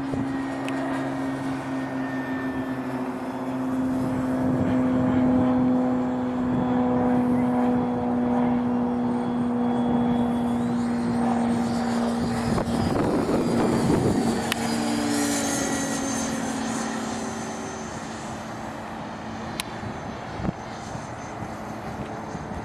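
Radio-controlled SU-30 model jet in flight, its electric ducted fans whining with pitches that shift as the throttle changes. It gets louder as the jet makes a low pass, with a rush of noise about 12 to 14 seconds in, then fades as it climbs away.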